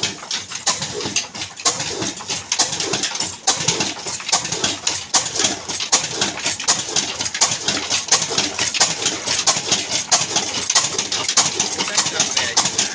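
Old black Ruston-type stationary diesel engine running, its exhaust beating out a steady, rapid rhythm of sharp knocks.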